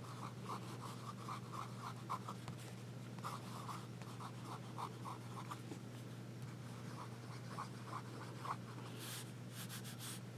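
Broad fountain pen nib writing on paper pad, faint short strokes of the nib gliding over the sheet in uneven runs, over a steady low hum. The nib sounds smooth, not scratchy.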